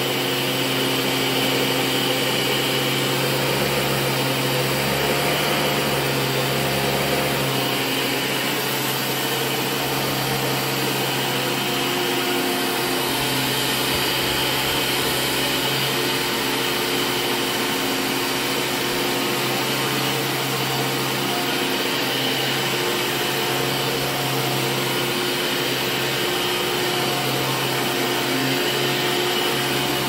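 Hoover Caddy Vac U5117 upright vacuum, with a 12-amp motor and 20-blade fan, running steadily as it is pushed over carpet.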